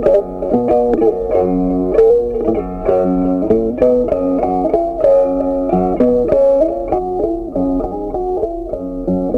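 Background instrumental music: a plucked-string melody over chords.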